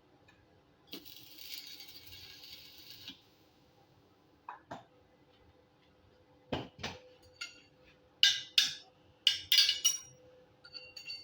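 Steel parts and hand tools clinking and tapping against each other: a few knocks, then a quick run of bright, ringing metallic clinks near the end. A brief hiss of about two seconds comes about a second in.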